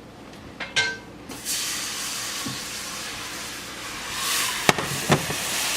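A short clink of kitchenware about a second in, then a steady hiss that swells briefly and is broken by two sharp knocks near the end.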